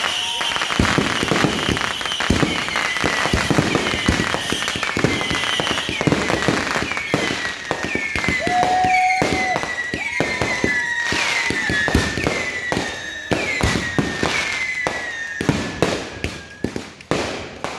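A dense, continuous fireworks barrage: rapid crackling and bangs with many short falling whistles overlapping one after another. The bangs thin out near the end.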